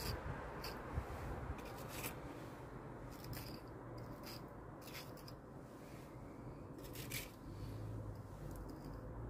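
A small steel trowel scraping lime mortar off a board and pressing it into the joints between cobbles: a series of short, sharp scrapes, bunched in the first few seconds and again about seven seconds in.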